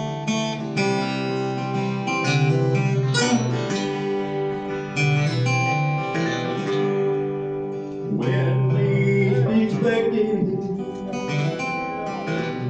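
Gospel song music led by strummed acoustic guitar, with other instruments carrying a melody and the chords changing every second or two.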